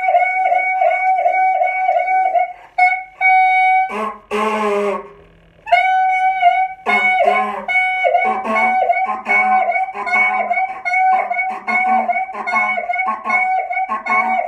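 Pieces of a taken-apart clarinet, mouthpieces with short sections attached, blown together: a high reedy note pulsing about four times a second. About four seconds in there is a brief buzzy squawk and a short pause, then the high note returns with lower honking notes pulsing beneath it.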